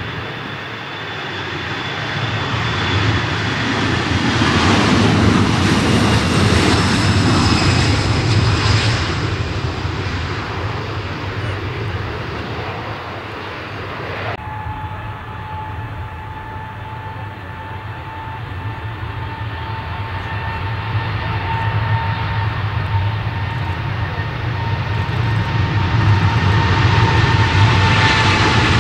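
Boeing 737 jet engines at takeoff power during the takeoff roll and climb-out, the whine swelling and then falling away. After a sudden cut about halfway through, a Boeing 777F's GE90 engines run on the runway with a steady whine that grows louder near the end.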